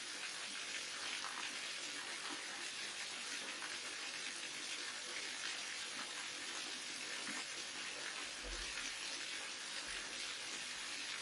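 Steady rush of falling water from a waterfall, an even hiss-like splashing with no breaks.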